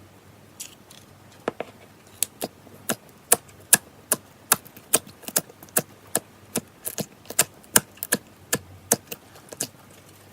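Slime being worked by hand, giving a run of sharp clicking pops at about two to three a second.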